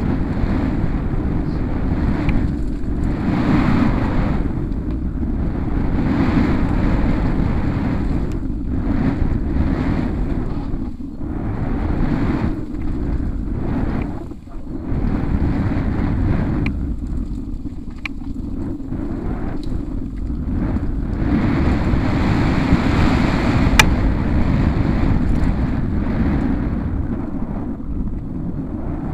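Wind buffeting the camera microphone together with tyre rumble on a dirt trail as a downhill mountain bike descends at speed, surging and dipping every few seconds. Occasional sharp clicks and rattles from the bike, the sharpest about two-thirds of the way through.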